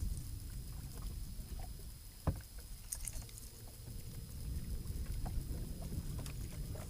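Low, steady rumble of a small fishing boat on the water, with a single sharp knock a little over two seconds in.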